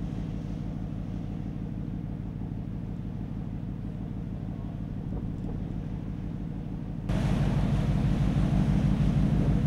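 Steady low hum of a ship's engines running. About seven seconds in the sound gets louder, with wind on the microphone and the rush of the sea added.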